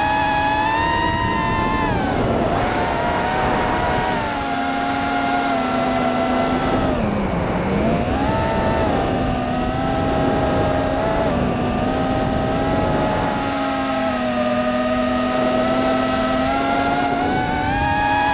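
FPV quadcopter's brushless motors and propellers whining through the onboard camera, the pitch rising and falling with the throttle. About seven seconds in the whine drops sharply, then climbs back. A steady rush of air noise runs underneath.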